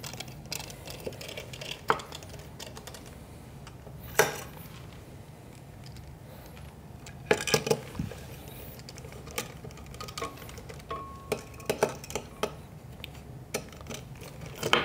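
A hand screwdriver driving screws into a coffee grinder's metal base, with scattered clicks and taps of the tool and screws against the metal housing, loudest about four seconds in and again in the second half.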